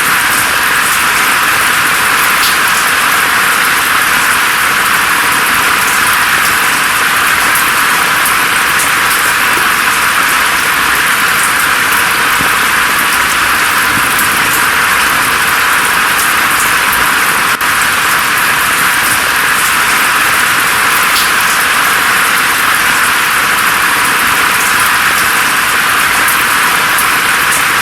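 Steady rain falling through forest foliage: an even hiss with scattered single drops ticking, and one brief dip in level about two-thirds of the way in.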